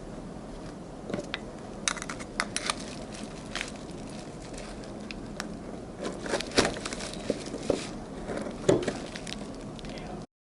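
Scattered light clicks, clinks and knocks of small parts being handled at a workbench, irregularly spaced over a steady low background hum. The sound cuts off suddenly near the end.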